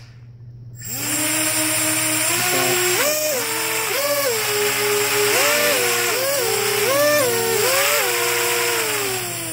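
Brushless motors and propellers of a homebuilt 250 quadcopter (EMAX MT1804 2480KV motors on Simon Series 12A ESCs) spinning up about a second in, their whine stepping up and down in pitch as the throttle and sticks are worked, then dropping off near the end. The front-right motor is not spinning freely, a fault the owner puts down to either that motor or its ESC.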